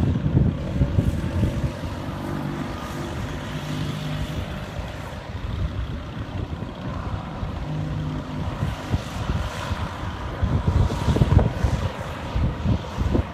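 Engine of an Allis-Chalmers Pug utility vehicle running as it tows a trailer through flood water, with wind buffeting the microphone.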